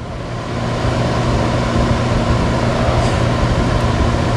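Steady whirring hum of an electric-motor-driven shop machine, building up over about the first second and then holding steady.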